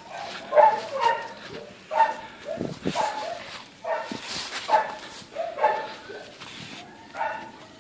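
A dog whining and yelping in short pitched cries, repeating about once or twice a second.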